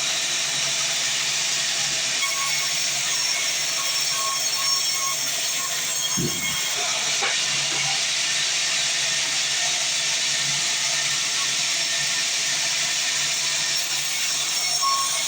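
Manual band sawmill running, a steady, even, high noise with no break.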